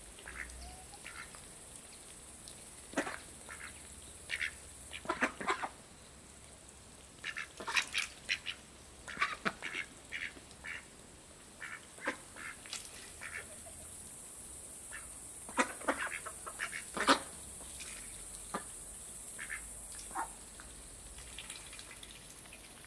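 Domestic ducks quacking while feeding: short calls in scattered clusters, the loudest a little past the middle.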